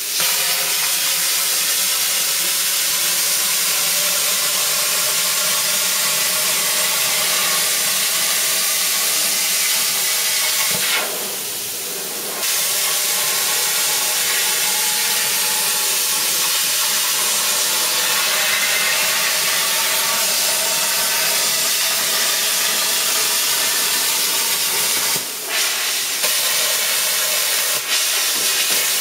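Cheap 40 amp plasma cutter cutting thin stainless steel sheet: a loud, steady hiss of the air and arc at the torch. It drops off for about a second and a half around eleven seconds in and dips briefly twice near the end.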